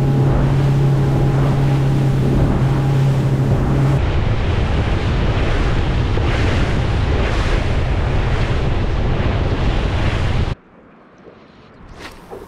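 Small outboard-powered boat running fast along the coast: a steady motor drone under heavy wind buffeting on the microphone and rushing water. The drone's hum fades from the mix after about four seconds, leaving the wind-and-water rush. The noise drops off suddenly near the end to a much quieter background.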